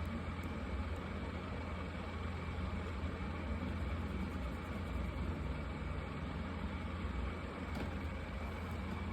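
Marker tips scratching across paper in continuous strokes, over a steady low hum.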